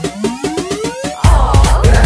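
Electronic party music with no singing: a rising synth sweep builds over the first second, then a heavy beat with deep bass drops in about a second and a quarter in.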